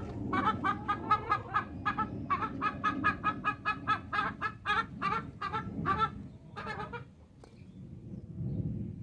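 A chicken clucking in a quick run of short calls, about five a second, that stops about seven seconds in.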